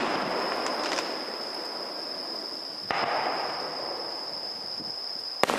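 Aerial fireworks bursting: a boom about three seconds in and a sharp bang near the end, each trailing off in a rolling echo, with a faint crackle about a second in. A steady high-pitched whine sounds underneath throughout.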